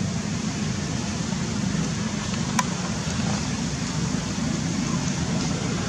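Steady low rumbling background noise, with one brief click about two and a half seconds in.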